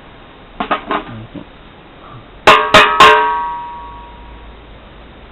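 Drums of an old drum kit struck with two thin wooden skewers used as drumsticks: a few light taps about half a second in, then three loud hits about two and a half seconds in, the last one ringing on for about a second.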